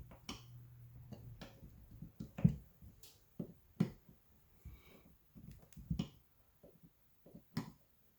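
Scattered sharp clicks and light knocks of a hand tool working the small cover screws of a Bosch warm-up regulator as they are tightened, at irregular spacing with the loudest knock about two and a half seconds in.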